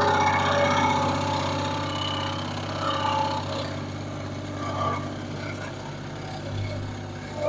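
Sawmill engine running steadily, with changing whining tones from the saw over its hum; the sound grows louder suddenly at the very end.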